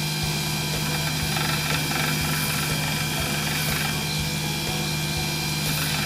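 Bench grinder with a belt linisher attachment running with a steady motor hum while a small steel key is held to the belt and ground to shape.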